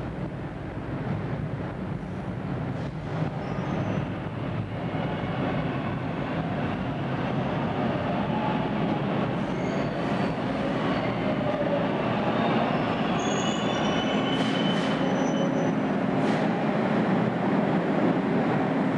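Toronto subway train approaching through the tunnel and pulling into the station, its rumble growing steadily louder. High squeals come in about two-thirds of the way through as it slows alongside the platform.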